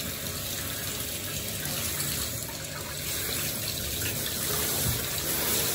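Handheld shower head spraying a steady rush of water over a small dog's head in a bathtub, rinsing shampoo out of the coat.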